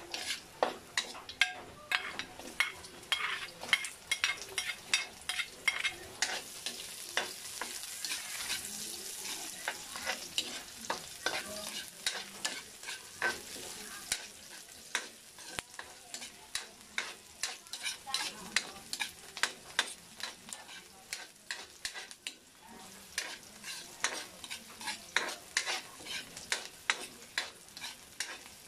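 Metal spatula scraping and clacking against a wok in quick, irregular strokes as chopped garlic and red onion are sautéed in oil, over a steady sizzle that is strongest midway through.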